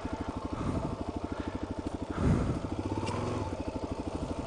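Dual-sport motorcycle engine idling, an even, rapid pulse, with a brief louder burst about two seconds in.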